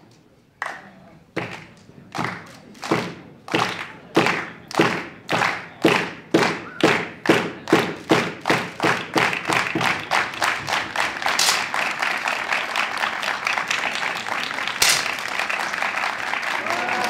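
Spectators clapping in unison, slow at first and steadily speeding up until the beats run together into continuous applause. Two sharper cracks stand out during the applause.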